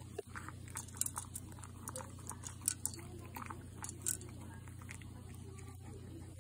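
American Cocker Spaniel crunching dry kibble from a ceramic bowl: a run of sharp, irregular crunches and clicks for about four seconds, then only a few.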